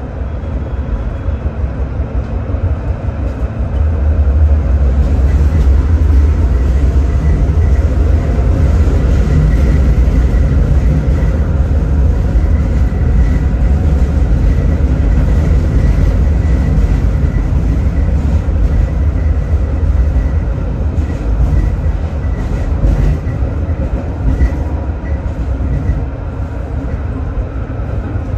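Tram running along its line, heard from on board: a steady low rumble that grows louder about four seconds in, with light clicks from the wheels over the track through the second half.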